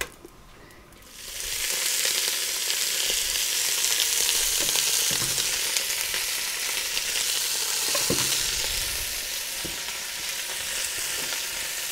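Pieces of raw beef shank searing in hot butter lard in a cast-iron Dutch oven: a loud sizzle that starts about a second in as the meat goes into the fat, with a couple of faint knocks of meat or tongs against the pot.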